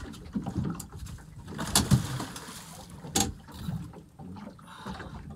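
Knocks and clunks on a small fishing boat as a mulloway is brought aboard, with two sharp knocks about two and three seconds in.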